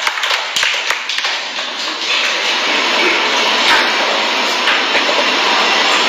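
Audience applause: separate claps at first, merging into a steady wash of clapping.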